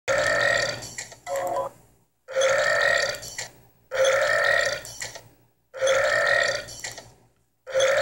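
A cartoon character's big, drawn-out burp, the same burp heard again and again: about five times, each starting suddenly and fading out over a second or so.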